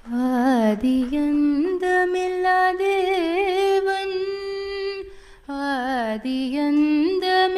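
A woman singing a Tamil devotional song, holding long drawn-out notes that waver and glide between pitches, with a brief pause for breath about five seconds in.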